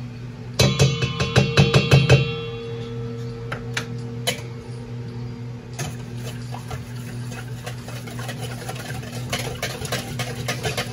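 Wire whisk beating an egg, butter and coconut milk batter in a stainless steel mixing bowl. About a second in comes a quick run of metallic clanks lasting about a second and a half, and the bowl keeps ringing after them. Then comes softer, rapid ticking and scraping of the whisk against the bowl, over a steady low hum.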